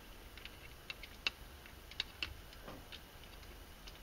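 Faint, irregular light metallic clicks as a clutch-cover bolt is started and turned in by hand on a UTV engine.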